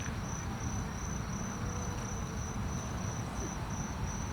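An insect chirping: a high, thin note repeated in rapid, evenly spaced pulses, over a steady low rumble.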